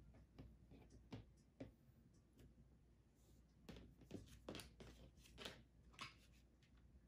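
Faint taps and rustles of cut bow pieces being handled and laid down on a cutting mat, a few soft ticks early on and a quicker cluster of sharper ticks in the last few seconds.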